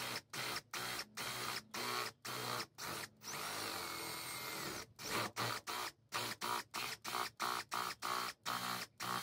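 Power drill with a 1-inch Forstner bit boring into the white plastic base of a Starlink dish, throwing off shavings. The trigger is pulsed in short bursts, about three a second, with one longer run of about a second and a half near the middle.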